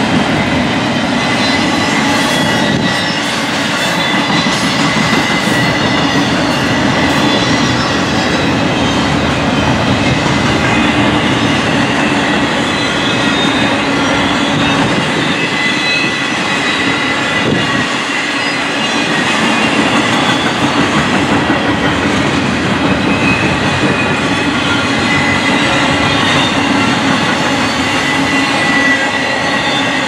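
Intermodal freight train passing close by: double-stack container cars and trailer-carrying flatcars rolling past with a steady, loud rumble and clatter of steel wheels on rail. A thin high wheel squeal runs through it, stronger in places.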